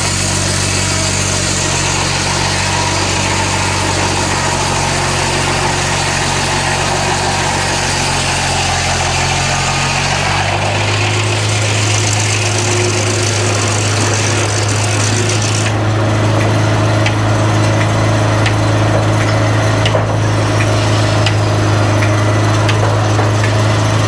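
Belt-driven Farquhar circular sawmill, with a 52-inch blade, sawing through a log under the steady running of the engine that drives it. About ten seconds in the engine's note changes, and a few seconds later the harsh cutting noise stops as the cut ends. The engine and the belt-driven blade keep running steadily, with a few faint ticks.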